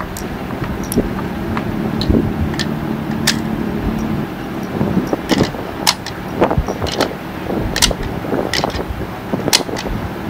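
Cartridges being pressed one by one into a .308 rifle magazine: a series of sharp, irregular metallic clicks. Behind them is a steady low hum that stops about four seconds in.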